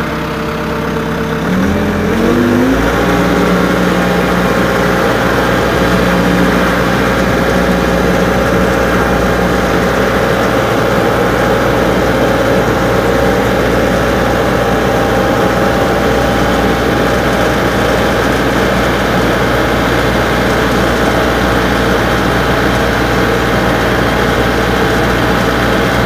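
Tractor engine idling, then revving up about two seconds in and running steadily at higher speed as the tractor drives along.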